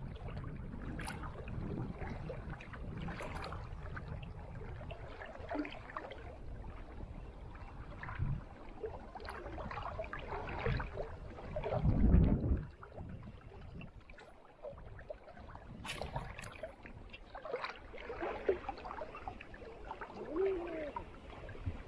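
River water flowing and gurgling, with scattered small knocks and a louder low whoosh about halfway through.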